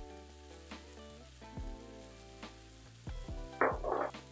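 Spiced chickpeas sizzling in a hot frying pan under background music. About three and a half seconds in, water and lemon juice hit the hot pan and a louder burst of sizzling lasts about half a second.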